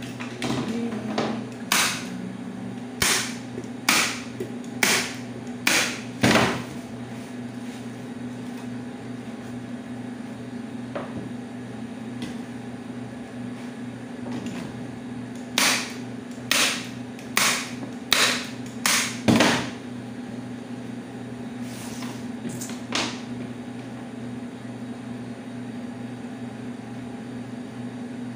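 Hand staple gun firing staples through upholstery fabric into a chair seat. About eight sharp snaps come in the first six seconds, a second run of about seven comes in the middle, and two fainter ones follow a few seconds later, over a steady low hum.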